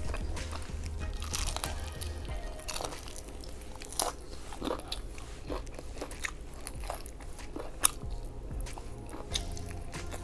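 A person biting into and chewing crispy fried chicken, the coating crunching, with two sharp, louder crunches about four seconds in and near eight seconds.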